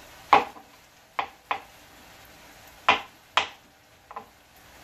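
Kitchen knife slicing button mushrooms on a plastic cutting board: about six sharp knocks of the blade striking the board, irregularly spaced.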